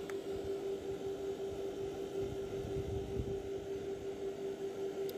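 A distant motor's steady hum: one even tone over a low rumble.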